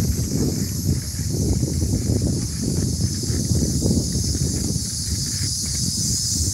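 Wind buffeting the microphone and tyre noise from a bicycle rolling along pavement, under a steady, high-pitched chorus of insects.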